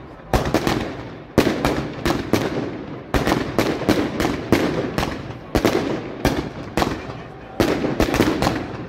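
Celebration fireworks going off in a rapid, irregular series of sharp bangs, about four a second in clusters, each with a short echoing tail.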